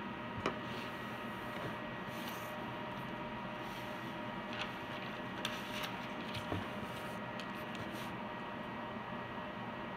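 Steady hiss and hum with a few faint thin tones, broken by a handful of short soft clicks: one about half a second in, and several between about four and a half and seven seconds.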